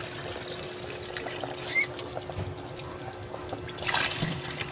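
Pot of rice porridge boiling with a steady bubbling, then water poured in from a jug, splashing loudest for about half a second near the end.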